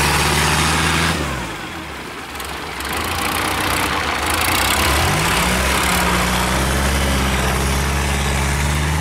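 Long-tail boat engine running steadily, then throttled down about a second in, its pitch dropping, and opened up again about five seconds in, after which it runs steadily again.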